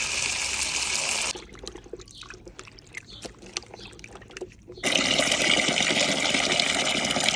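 Water running in a steady stream, stopping about a second in for three or four seconds of small knocks and clicks, then running again.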